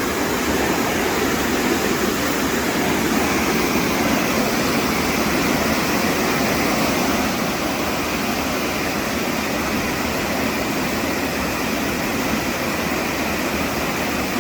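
Waterfall rushing: a steady, loud wash of falling water with no change.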